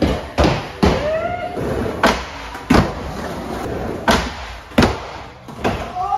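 Skateboard hitting a wooden mini ramp: a series of about eight sharp clacks and thuds from the deck and wheels landing and slapping on the ramp surface, with wheels rolling between them.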